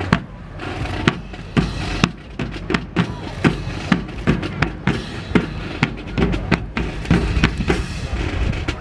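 Marching drum corps playing a cadence: sharp snare strikes a few per second over deeper bass drum beats.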